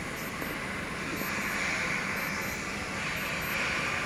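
Steady rushing background noise without a clear tone, getting slightly louder about a second and a half in.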